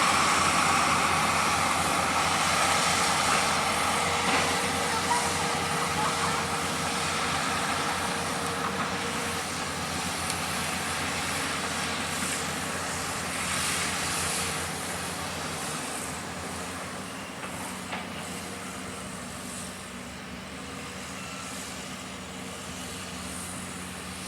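Heavy construction machinery engine running steadily, gradually growing quieter.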